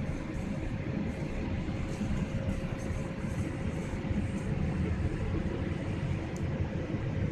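Steady jet-engine and airflow noise heard from inside an airliner's cabin at a window seat over the wing engine, on descent. A faint steady hum runs through it.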